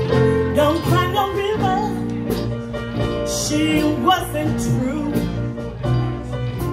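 A blues band playing live, with electric guitars, drums and keyboard, and a woman singing.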